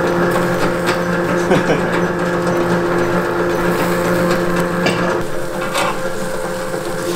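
Steady mechanical hum of a rotisserie cooker's motor turning the chicken spits, with a few faint clicks. The lowest part of the hum drops out about five seconds in.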